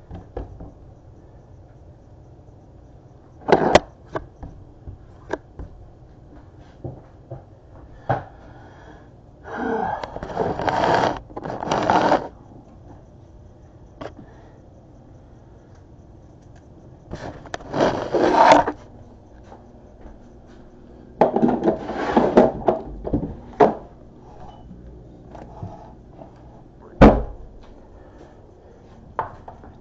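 Kitchen handling noises: scattered knocks and clicks, several bursts of rustling a second or three long, and one sharp knock near the end.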